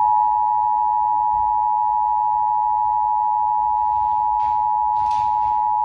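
Emergency Alert System attention signal: two steady tones sounding together as one loud, unbroken, slightly harsh drone. It is the alert that comes before an emergency broadcast message, here a coordinated test of the alert system.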